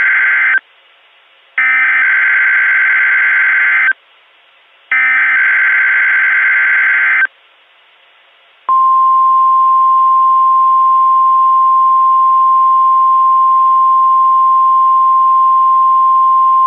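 Emergency Alert System SAME header: harsh, buzzing digital data bursts (the tail of one, then two more, about a second apart), followed from about 9 seconds in by the National Weather Service's 1050 Hz single-tone alarm, held steady. Together they signal the start of an emergency alert broadcast.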